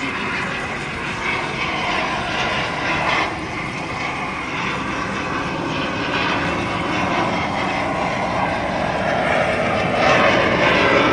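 Engines of a formation of aerobatic display aircraft passing overhead in a steady rushing drone that grows louder, rising further about ten seconds in.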